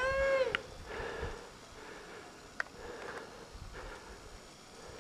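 A short high-pitched whoop from a skier right at the start, then soft, intermittent swishing of skis turning through powder snow, with one sharp tick about halfway.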